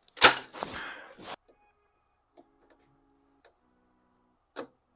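A short rustling clatter near the start, then a few light clicks and one more brief rattle near the end: hand work at an electrical pump control panel.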